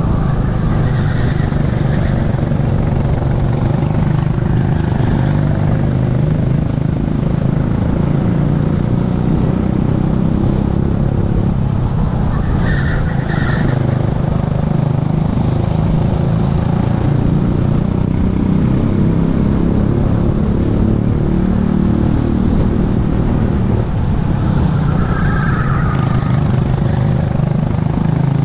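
Racing kart engine running hard, its revs falling into the corners and picking up again on the exits, heard from the driver's seat with wind rush over a helmet-mounted camera. Tyres squeal briefly about halfway and again near the end.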